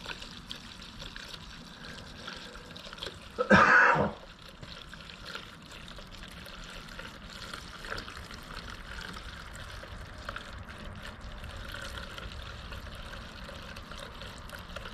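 Gasoline trickling steadily from a gas can's spout into a Generac GP6500 portable generator's fuel tank. One brief, louder noise comes about three and a half seconds in.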